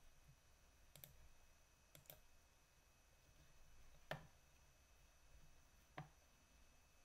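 Near silence broken by a handful of faint, sharp computer mouse clicks, the loudest about four seconds in.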